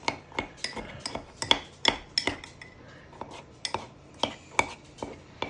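A spoon knocking and scraping against the inside of a mug in quick, irregular clinks, about two or three a second, as it mashes Oreo cookies soaked in milk.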